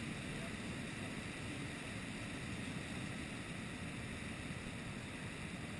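Steady low rumble of wind buffeting the camera's microphone, from the airflow of a tandem paraglider in flight.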